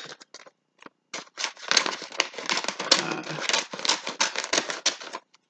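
Scissors snipping through wrapping paper in quick, irregular cuts, with the paper crinkling as it is handled. The cutting starts about a second in.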